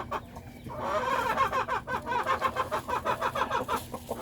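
A flock of chickens clucking, a dense run of short overlapping clucks that thickens from about a second in.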